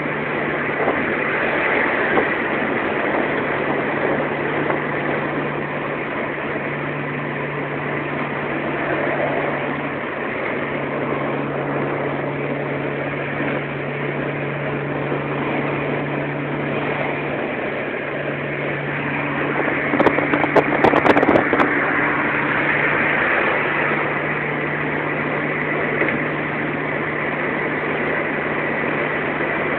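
Car engine and road noise heard from inside the cabin at highway speed, a steady drone. About twenty seconds in comes a couple of seconds of sharp crackling knocks.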